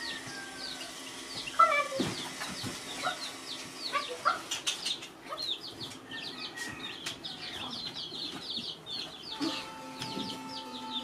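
Small birds chirping in quick short falling notes, with chickens clucking and squawking now and then. Held musical notes come in near the end.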